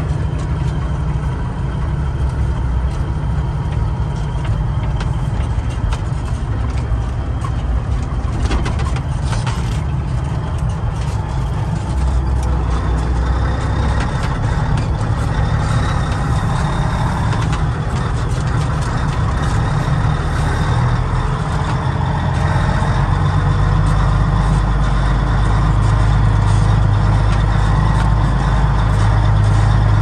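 Caterpillar diesel engine of a 1986 Ford LTL 9000 truck running under way, heard from inside the cab as a steady low drone with cab rattle. There is a brief clatter about eight or nine seconds in, and the engine gets louder over the last several seconds.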